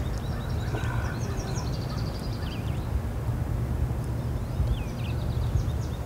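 Steady low rumble on the microphone, with small birds chirping in the background: short high chirps throughout and a fast, evenly pulsed high trill near the end.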